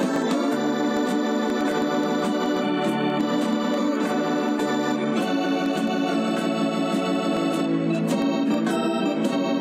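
Background music of slow, sustained organ chords that change every second or two.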